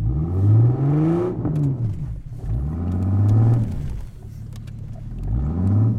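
Jeep engine revving up and falling back three times in a row, the pitch rising and dropping with each swell.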